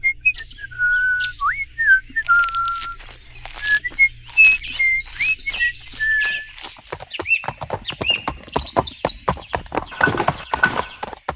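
Birdsong: clear whistled notes, some sliding up or down and some held steady, giving way in the second half to a quick run of short clicks and chirps.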